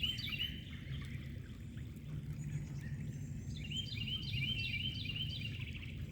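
A songbird sings a rapid series of repeated chirping notes, at the very start and again a little past the middle, over a steady low rush of runoff water flowing across the ground.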